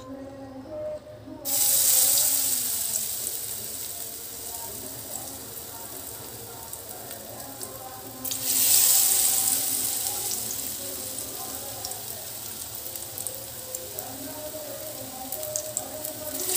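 Besan-battered bread fingers going into hot oil in a kadai: each piece hits the oil with a loud burst of sizzling that slowly settles to a steady frying hiss. It happens about a second and a half in, again around eight seconds in, and once more near the end.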